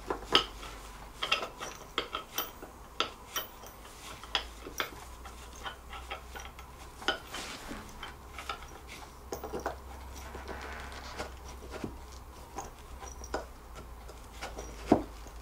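Irregular light clicks, clinks and knocks of assembly hardware as a bolt is worked at a wooden chair leg's mounting point to fix the leg to the chair frame; the leg is not fitting.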